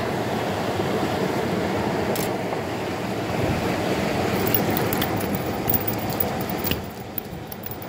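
Steady rush of river water, with a few light clicks and rattles of pebbles in the second half as a freshly caught trout flops on the stones.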